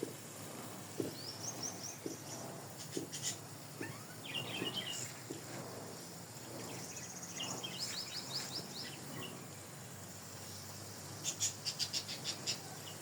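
Bulbul calling in several short runs of quick, high chirps. Near the end comes a rapid run of sharp clicks.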